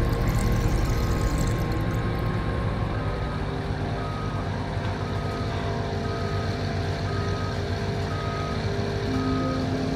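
Heavy diesel lifting machinery running steadily with a low rumble, while a machine's motion alarm beeps at a regular pace, roughly once a second, from about a second in.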